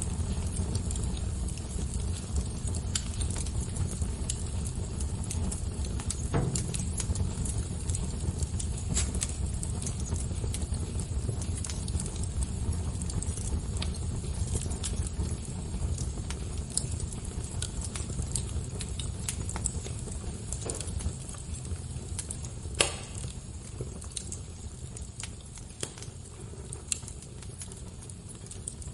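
Wood fire crackling: a steady low rumble of flame with scattered sharp pops and snaps, one loud pop about 23 seconds in.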